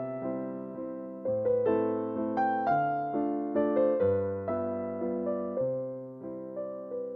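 Background music: a gentle piano melody, notes struck about twice a second and left to fade.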